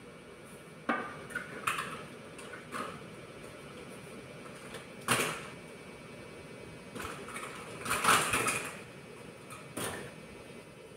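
Tongs and plastic toy food knocking and rattling against a clear plastic storage bin as a child picks items out: scattered knocks, a sharper one about five seconds in, and a run of clattering around eight seconds.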